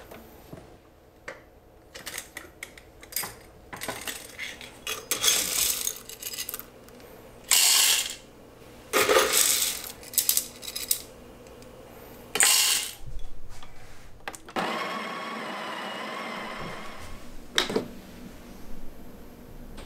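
Coffee beans rattling and clinking from a small metal cup into an espresso machine's grinder hopper in several loud spells, then the machine's built-in grinder running steadily for about three seconds. A sharp clack follows as the portafilter is handled.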